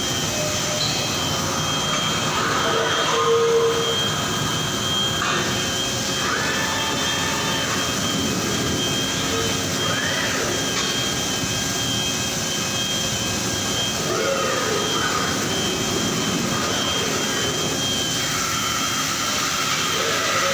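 Steady din of machinery on an engine factory floor, with a constant high whine and now and then short whirring sounds that rise and fall.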